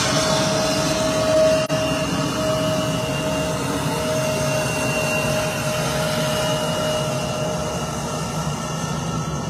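Turbofan engines of an Embraer E175 regional jet at taxi power as it rolls past: a steady rushing hum with a high, even whine on top. The sound dips for a moment a little under two seconds in.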